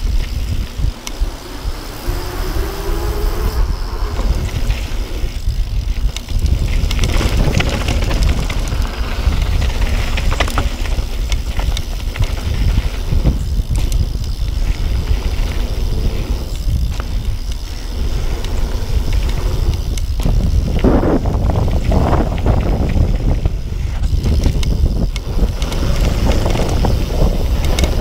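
Wind buffeting the microphone over the tyres of a Yeti SB6 mountain bike running fast on a dirt trail, with frequent short clatters and knocks from the bike over bumps and landings, and a brief squeal near the end.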